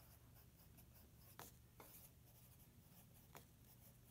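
Very faint pencil writing on lined paper: soft scratching strokes with a few light ticks of the pencil point, over a low steady hum.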